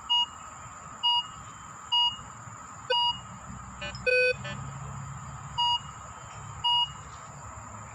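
Minelab Vanquish 340 metal detector beeping as its coil is swept over the ground: short, mid-pitched beeps about once a second, each signalling metal under the coil, with a lower-pitched beep about four seconds in and a pause near the five-second mark.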